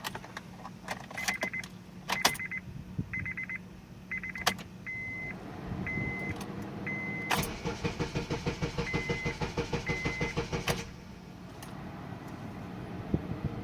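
Car's dashboard warning chime beeping and a few clicks from the key, then the starter cranks the engine for about five seconds in a steady rhythmic chug without it catching, and stops abruptly. This is a crank-but-no-start despite a newly replaced starter.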